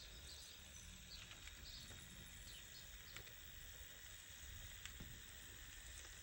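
Faint running of a Hornby OO gauge 8F model steam locomotive: a low motor hum and wheels rolling slowly over track points, with a few light clicks.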